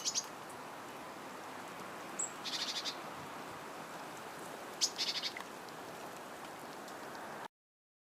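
Small birds chirping in three short bursts, one a quick run of repeated high notes, over a steady background hiss. The sound cuts out abruptly near the end.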